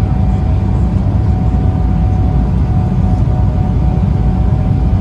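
Cabin noise inside an Embraer 195 airliner on final approach with flaps extended: a steady, loud rumble of airflow and its GE CF34-10E turbofan engines, with a thin steady whine running through it.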